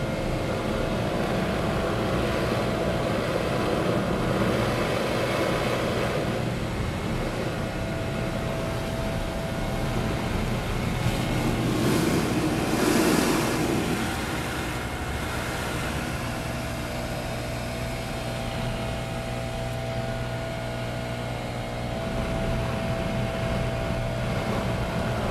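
Gas-powered leaf blower running steadily, heard from inside a bus through its closed entrance door; it swells for a couple of seconds about midway as it passes closest. It is being played along the door seam to find an air leak that makes the door whistle.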